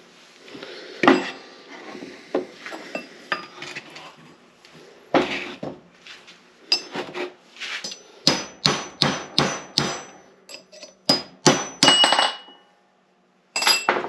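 Hammer blows on metal driving an old bearing out of an NP205 transfer case's idler gear. Scattered strikes at first, then past the middle a quick run of about eight ringing blows, roughly three a second.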